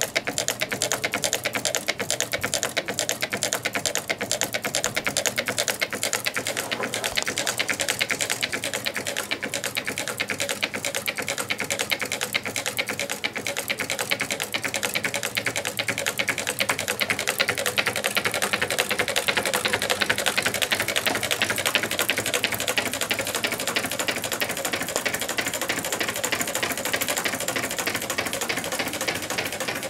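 Twin-cylinder Meccano Stirling engine running steadily, giving a fast, even clatter of ticks as its displacers land at each end of their travel.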